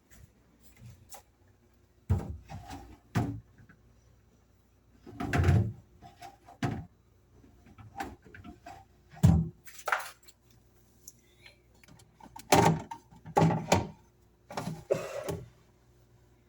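Refrigerator shelves and drawers being handled: a series of irregular knocks, clatters and short scrapes, the loudest about two, five, nine and thirteen seconds in.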